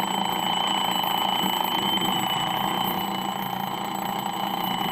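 Battery-powered retro-style alarm clock ringing: a steady, continuous, rapid ring.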